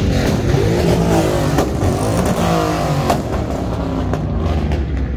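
A car engine revving hard, its pitch climbing and falling again several times, with two sharp cracks about a second and a half in and about three seconds in.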